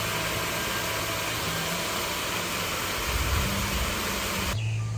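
A steady rushing hiss over a low hum, cutting off abruptly near the end.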